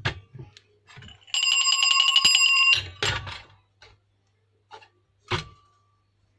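Small metal puja hand bell rung fast for about a second and a half to open the evening aarti. Scattered knocks and clinks come before and after, with one more single ding of the bell near the end.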